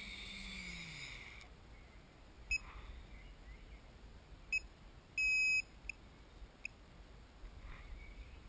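Quadcopter's brushless motors and propellers spinning down and stopping, a falling whine that dies out about a second and a half in. Then the KK2.1 flight controller's buzzer beeps as its buttons are pressed: four short beeps and one longer, louder beep about five seconds in.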